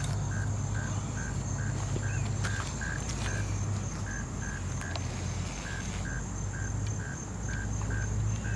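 Insects calling: a short chirp repeating steadily about two or three times a second, over a steady high-pitched buzz and a low rumble.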